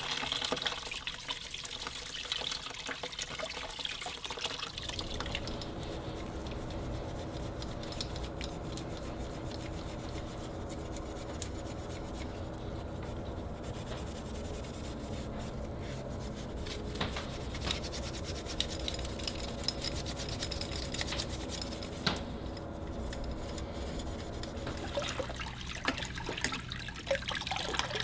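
Gloved hands rubbing rust off the metal beater blades of an antique rotary egg beater under a running tap: scratchy rubbing and small scrapes over the steady sound of flowing water.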